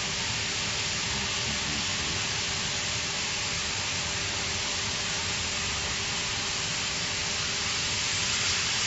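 Plasma cutting torch on a CNC gantry profile cutter cutting through steel plate: a steady hiss with a faint steady tone underneath.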